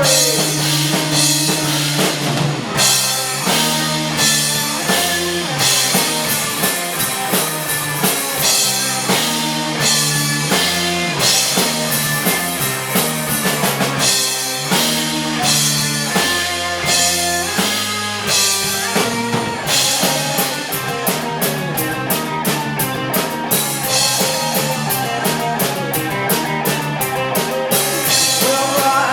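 Rock band playing an instrumental passage with drum kit and guitar. About two-thirds of the way through, the drumming turns to steady, rapid, evenly spaced strokes.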